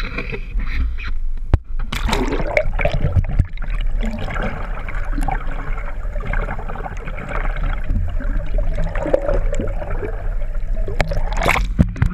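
Seawater rushing and gurgling around an action camera held under the surface, a steady muffled wash, with a few sharp splashes near the end as the camera breaks the surface.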